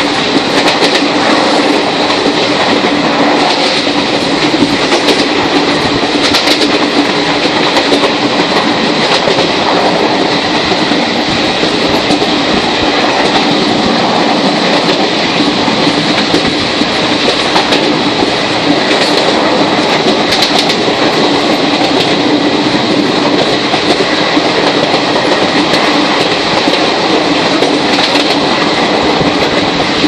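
Train running at speed, heard from inside the carriage: a loud, steady rush of wheels on rail with a steady low hum and occasional clicks of the wheels over the track.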